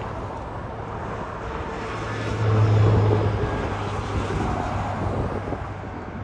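Jet aircraft engines heard across an airfield: a steady rumble and hiss that swells louder about two and a half seconds in, then eases back.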